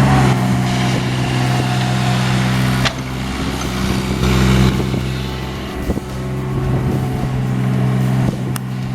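Excavator engine running steadily, briefly louder about four seconds in, with a sharp clank about three seconds in and another near the end.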